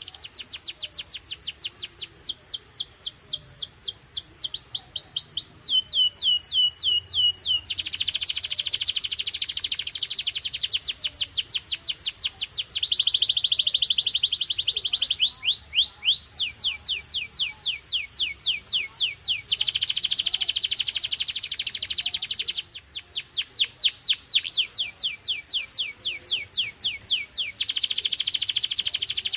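Domestic canary singing a long, continuous song. It is built of phrases a few seconds long, each one note repeated rapidly, switching between slower runs of separate falling notes and fast, dense rolls.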